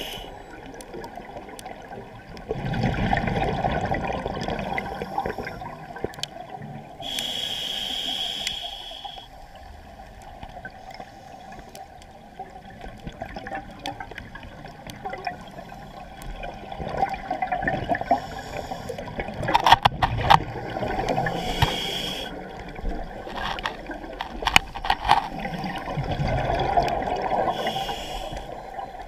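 Scuba diver breathing through a regulator underwater, about three breaths: each inhale is a hiss with a thin high tone, and each exhale is a rush of bubbles. Around twenty seconds in and again a few seconds later come short runs of sharp clicks.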